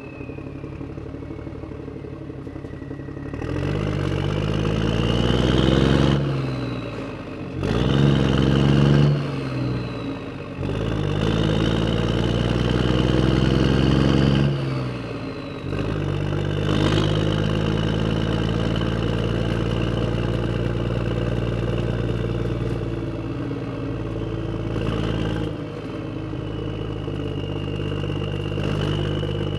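Miniature model excavator's motors running as it digs soil, the pitch rising and falling in several surges during the first half, then running more steadily with a high whine.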